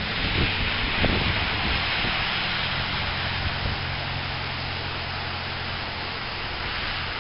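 Steady hissing background noise with a low steady hum underneath, easing off slightly.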